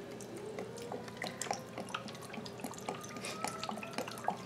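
Vodka poured in a thin stream from a bottle into a glass jar packed with green sweet gum balls, trickling and dripping onto the pods in many small, irregular splashes.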